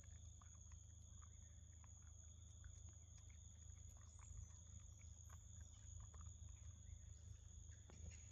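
Near silence: faint outdoor ambience with a steady high-pitched hum and a few scattered faint ticks.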